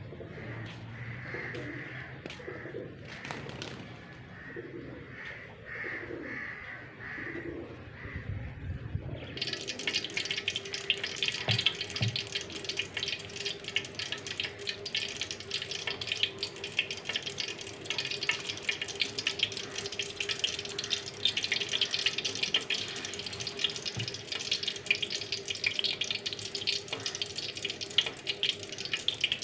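Birds calling, among them a dove cooing, for about nine seconds; then a sudden change to hot oil sizzling and crackling steadily as pakoras deep-fry in a karahi.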